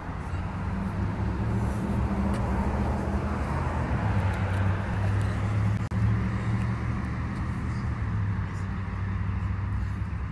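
Steady low hum of outdoor traffic noise, with a constant low drone.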